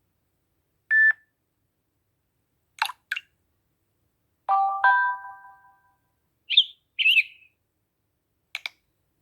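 A string of short phone notification tones from a Samsung Galaxy J7 (2017), played one after another with silence between: a brief steady beep about a second in, a couple of quick clicks, a two-note chime that rings out around the middle, then short gliding chirps and a quick double click near the end.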